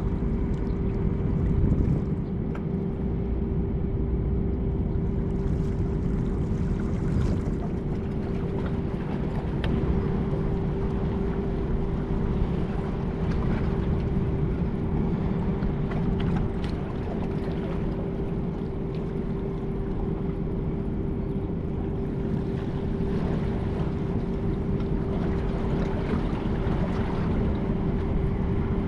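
A marine engine running steadily, a low rumble with one constant hum that does not change.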